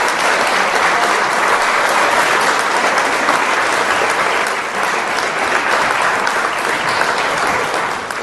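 A large audience applauding steadily, with dense clapping that dies away near the end.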